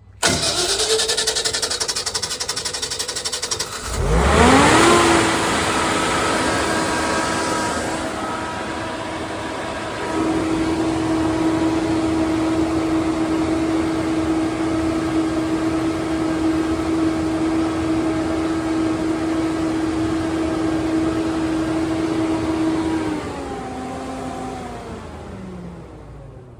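Natural gas generator engine cranked by its starter for about four seconds, then firing, revving up and running at a steady governed speed, with a step in level about ten seconds in. Near the end it shuts down and winds down with falling pitch. It starts now that its throttle position sensor faults have been cleared, after a crank-no-start.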